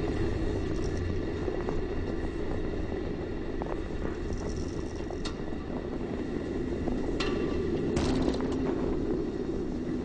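Steady low rush of air on a Space Shuttle solid rocket booster falling under its three main parachutes, with a few short clicks in the second half.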